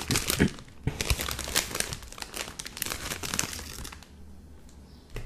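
Clear plastic bag crinkling and crackling right at the microphone as crackers are taken out of it. The crackling is dense at first and eases off about three and a half seconds in.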